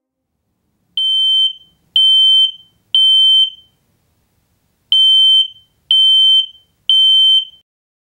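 Smoke alarm sounding: two sets of three loud, high-pitched beeps, each about half a second long, with a pause between the sets. This is the temporal-three pattern that smoke alarms use to signal a fire.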